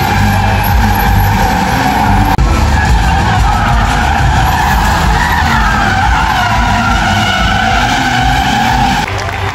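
Several stunt cars drifting in tight circles: tyres squealing continuously with a wavering pitch over the rumble of their engines.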